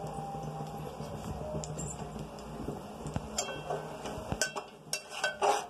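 Metal utensils clinking and knocking against steel cookware, a few scattered ticks at first, then a run of sharp clinks in the second half, some ringing briefly. Under them runs a steady low hum.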